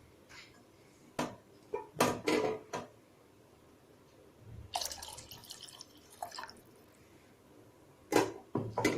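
Water being poured and dripping into a pan of rasam, with several sharp clinks and knocks against the pan.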